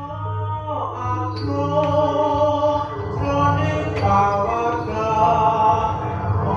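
Javanese jaranan gamelan music playing, with a group of voices singing and chanting over it and a few sharp percussion strikes.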